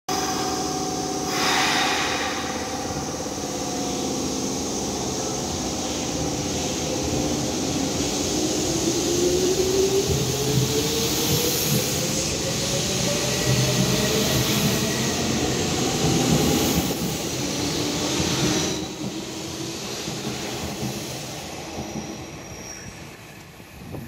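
Hanshin 8000-series electric train pulling out of a station. A short hiss of air comes near the start, then the traction motors whine, rising steadily in pitch as the train accelerates past with wheel and rail rumble. The sound drops away about 19 seconds in as the last car goes by.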